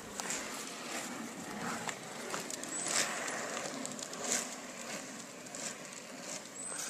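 Roller-skate wheels rolling over a tarmac road, a steady rolling noise.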